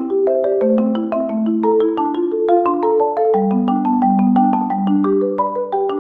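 Background music: a bright, quick-moving melody of short mallet-percussion notes, marimba-like, with a lower line of longer held notes underneath.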